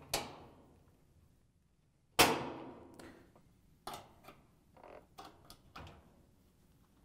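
Spring-steel cabinet retaining clips snapping into a top-load washer's sheet-metal cabinet. A small click comes at the start, then a sharp snap about two seconds in that rings on in the metal, then a scatter of light metal taps and clicks as the next clip is fitted.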